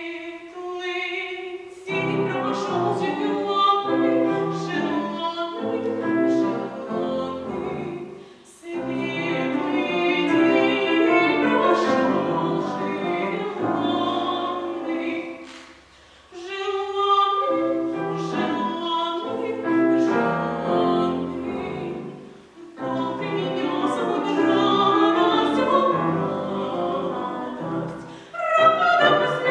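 A child singing a classical art song in academic style, with vibrato and piano accompaniment. Phrases are separated by brief breath pauses, about every six to eight seconds.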